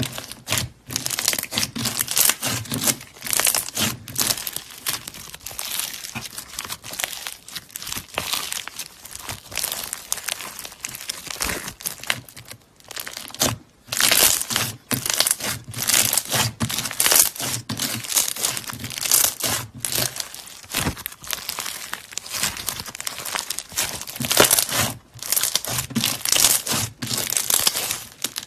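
Hands squeezing and kneading floam, slime packed with small foam beads: dense crackling and crunching as the beads are pressed together. It comes in surges with each squeeze, with a couple of brief pauses.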